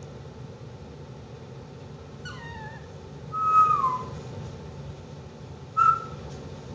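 Puppy whining: three short high-pitched whimpers. A falling one comes about two seconds in, the loudest, which drops in pitch at its end, about a second later, and a brief one near the end.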